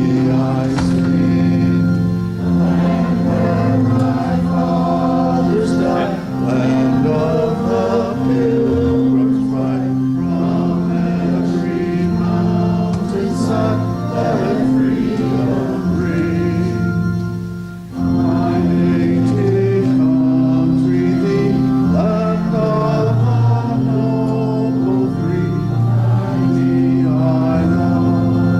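A hymn with organ playing held chords under voices singing, with a brief break between phrases about 18 seconds in.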